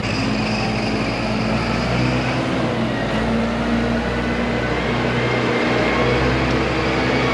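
A vehicle engine running steadily, its pitch and loudness slowly rising.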